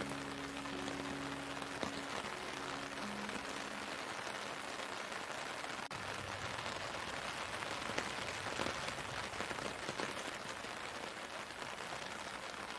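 Steady rain: an even hiss with scattered small drop ticks. A few soft held music tones fade out about three seconds in.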